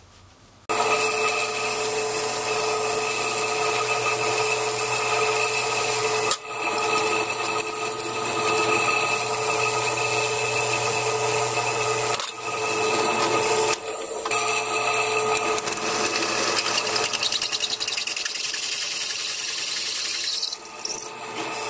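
Drill press running with its bit cutting into a brass pipe, drilling the air intake holes of a propane burner: a steady motor sound that starts abruptly about a second in and drops out briefly three times.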